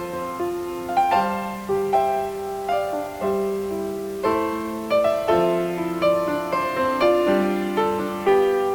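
Background piano music: slow, gentle notes and chords struck about once a second.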